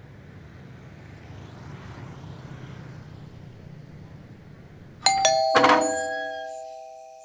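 A low steady rumble, then about five seconds in a doorbell chimes: a couple of struck tones that ring on and fade away.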